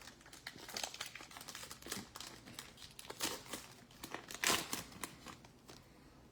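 Wrapper of a football trading card pack being crinkled and torn open by hand, in irregular rustling strokes, the loudest about four and a half seconds in.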